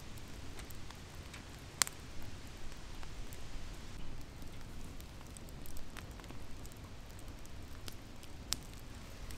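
Wood fire burning in a metal fire ring, crackling with scattered pops over a low rumble. The sharpest pop comes about two seconds in, and another comes near the end.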